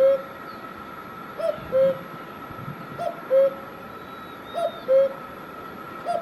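Common cuckoo calling its two-note 'cuck-oo', a higher note dropping to a lower one, repeated about four times at a steady pace of one call every second and a half.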